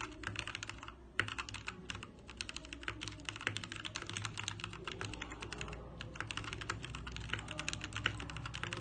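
Fast typing on an EK87 mechanical keyboard: a dense, continuous clatter of key clicks, with a steady low hum underneath.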